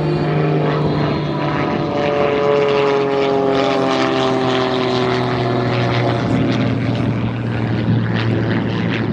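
Propeller airplane flying past, its steady engine drone slowly falling in pitch as it goes by.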